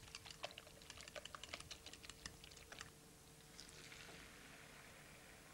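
Faint crackling of hot fat in a frying pan: many small, quick ticks for the first few seconds. A soft hiss follows from about three and a half seconds in, as the beaten egg and courgette mixture goes into the pan.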